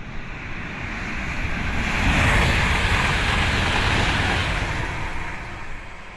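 A long rushing whoosh that builds, peaks about two to four seconds in, and then fades away: a sound effect over an animated title sequence.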